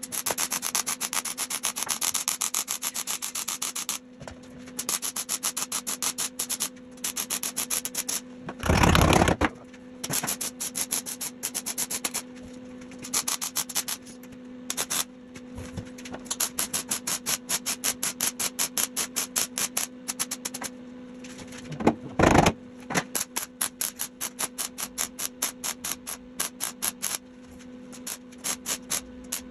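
Welding on the truck cab's sheet metal: dense crackling of the arc in runs a few seconds long, broken by short pauses between welds, over a steady hum. Two louder rushes of noise break in, about nine seconds in and again at about twenty-two seconds.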